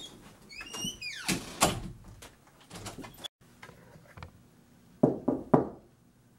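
Three quick knocks on a door near the end. Before them, a squeak falling in pitch and some shuffling.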